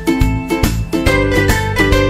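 Background music with plucked-string notes over a steady beat.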